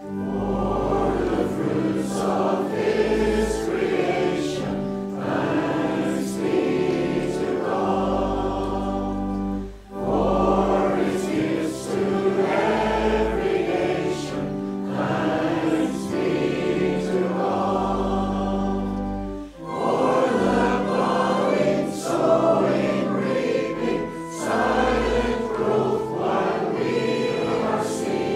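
Church choir and congregation singing a hymn of praise with instrumental accompaniment, the song pausing briefly between lines about ten and twenty seconds in.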